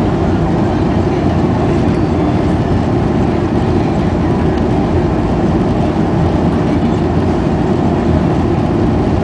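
Steady, loud cabin noise of a Boeing 737-400 in flight, the drone of its engines and the rush of air with a heavy low rumble.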